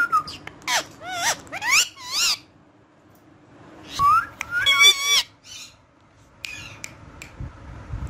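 Indian ringneck parakeet giving a string of short whistled calls that sweep quickly up and down in pitch, then a short pause and another burst of calls about four seconds in, with a few brief chirps near the end.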